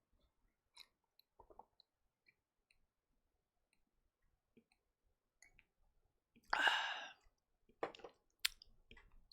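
Faint scattered clicks, with a short breathy hiss about six and a half seconds in and a few sharper clicks near the end.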